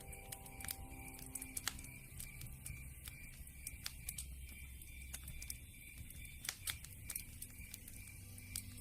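Campfire crackling, with irregular sharp pops and snaps over a soft hiss. Soft sustained music notes fade out about two seconds in.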